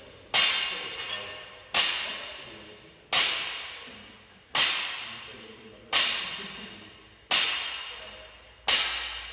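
Barbell loaded with 52.5 kg of black bumper plates touching down on the floor at each touch-and-go deadlift rep. Seven sharp impacts about a second and a half apart, each ringing away over about a second.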